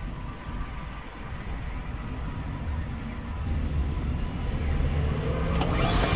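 Low road and traffic rumble around a moving car, picked up by a camera mounted outside the car, growing louder. Near the end a sharp click is followed by a whine of several tones, some of them sliding.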